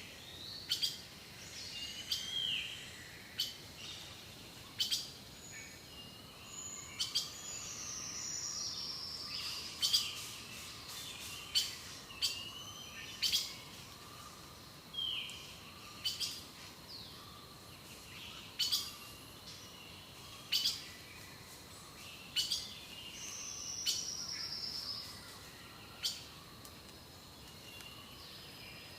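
Several wild birds singing and calling: sharp chip notes every second or two, short down-slurred whistles, and twice a longer descending trill. A faint steady high tone runs underneath.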